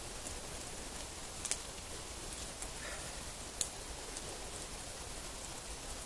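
Quiet outdoor ambience: a steady hiss with a few faint, sharp crackles from a wood campfire, the clearest about a second and a half in and again near four seconds.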